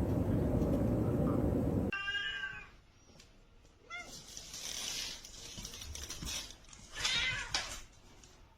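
A steady loud noise cuts off abruptly about two seconds in. Then a cat meows: a short call, a second short call about two seconds later, and breathy noisy sounds in between.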